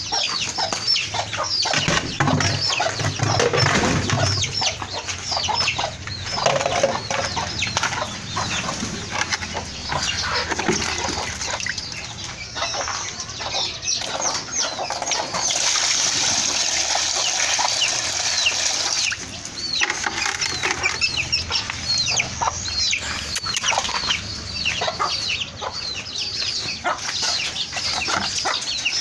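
A flock of hens and chicks clucking and peeping continuously. About halfway through, water pours steadily for around four seconds as they are given water.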